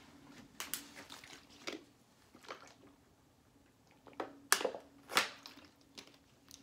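A man drinking from a thin plastic water bottle: scattered short crinkles and clicks of the plastic with swallows, more of them about four to five seconds in, over a faint steady hum.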